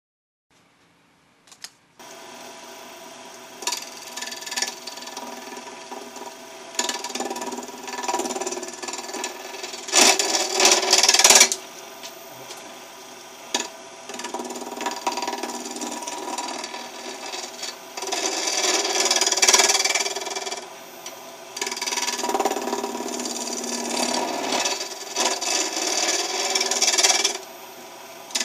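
Wood lathe running while a hand-held turning tool cuts an epoxy resin blank: a steady hum with irregular passages of loud scraping as the tool bites. It starts after about two seconds of near silence.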